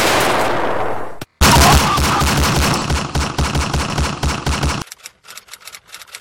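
Machine-gun fire sound effect: after about a second of loud noise, a rapid burst of shots runs for about three seconds and cuts off suddenly. Faint rapid clicking follows.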